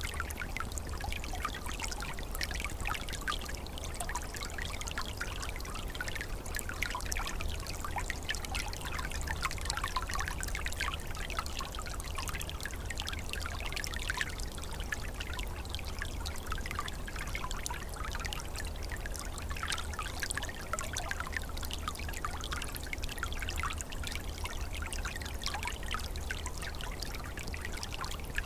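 A small, calm forest stream trickling and babbling steadily over its bed in winter, a continuous gentle flow with many small splashes and no pauses.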